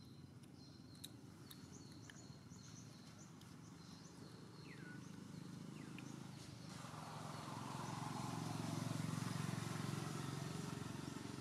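Quiet outdoor ambience: scattered faint, high bird chirps, then a low rumble that swells over a few seconds and eases off near the end.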